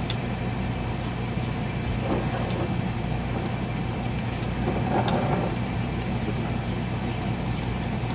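Steady low mechanical hum, like a fan or motor running in the shop, with a few faint light clicks and a short scraping or rustling noise about five seconds in.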